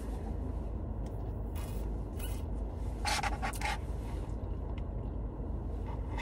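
Steady low rumble inside a car, with a few short scraping and rustling handling noises, the loudest cluster about three seconds in.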